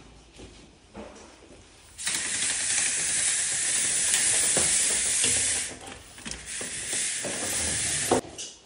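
Vinyl vertical blind slats on a Vogue headrail sliding and rubbing as the blind is drawn. It is a loud, steady swishing hiss that starts abruptly about two seconds in, eases off after about five seconds, and ends with a click near the end.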